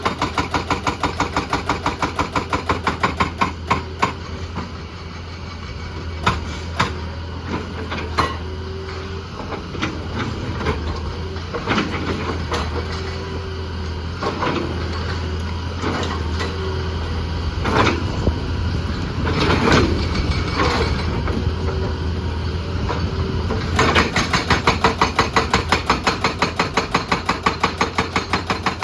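Heavy diesel engine of an excavator running with an even pulsing beat, about five a second, that eases in the middle and returns near the end. In the middle comes a series of separate knocks and scrapes, with short steady whines now and then.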